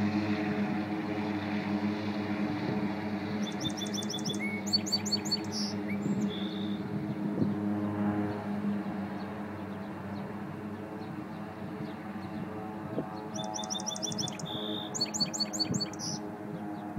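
Float plane's propeller engine droning steadily and slowly fading as the plane climbs away. A small songbird sings over it twice, a quick run of high notes each time, about four seconds in and again near the end.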